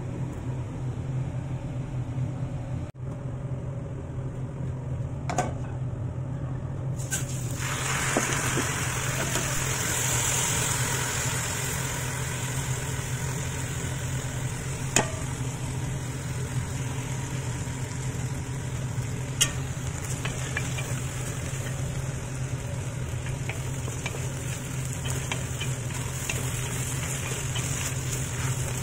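Raw rice sizzling as it is stir-fried in hot oil in a pot, the hiss starting about seven seconds in. A few sharp knocks of the stirring spoon against the pot, over a steady low hum.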